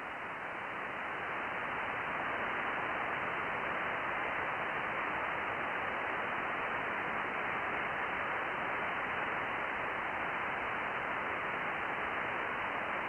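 Steady hiss of receiver noise from an amateur radio on sideband, cut off above about 3 kHz, growing a little louder over the first two seconds.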